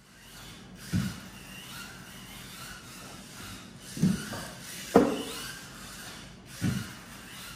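Team Losi Micro-B RC buggy's small electric motor whining as it drives around a carpeted track, with four dull thumps as it hits the ramps: about a second in, twice around the middle, and once more near the end.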